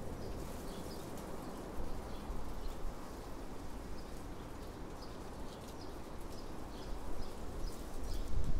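Outdoor ambience: small birds chirping on and off over a steady low rumble, which swells and turns bumpy near the end.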